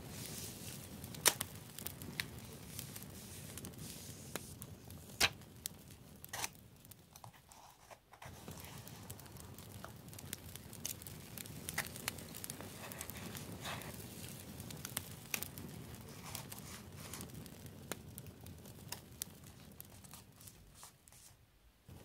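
Paper stickers and cut paper pieces being handled with metal tweezers on a journal page: paper rustling, with scattered sharp taps and clicks as the tweezers press and place the pieces.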